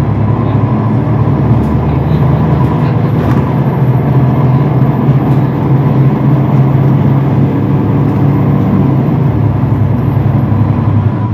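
Mercedes-Benz Citaro city bus's diesel engine running steadily under load, heard from inside the passenger cabin, as the automatic gearbox kicks down to a lower gear.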